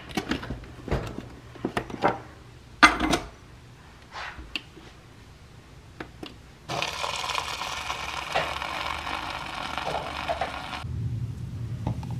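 Clicks and knocks as a Nespresso Vertuo capsule coffee machine is loaded and a mug set under it, then the machine brewing with a steady whirr for about four seconds, followed by a lower hum near the end.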